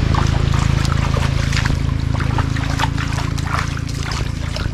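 Water splashing and sloshing as a bamboo-framed push net is shoved through shallow floodwater, with many small irregular splashes and drips. A steady low hum runs underneath.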